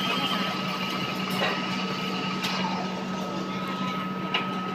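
Metal lathe running with a steady hum and a thin, constant whine as a tool bit cuts the bearing bore of a motorcycle wheel hub, with a few sharp ticks.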